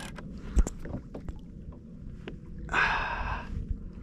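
Kayak angler fighting a heavy fish on rod and reel: scattered knocks and clicks from the gear and hull, with a hard thump about half a second in, a short rushing breath out near three seconds in, and a steady low rumble of water and wind underneath.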